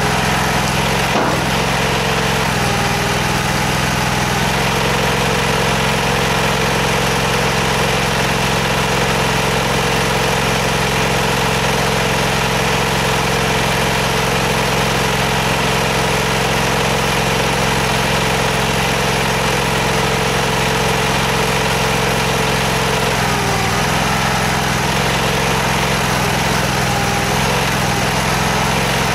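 Engine driving the M-50 stone splitter's hydraulic power unit, running steadily; its note shifts about three seconds in and again near the end as the splitter is worked. One sharp crack about a second in.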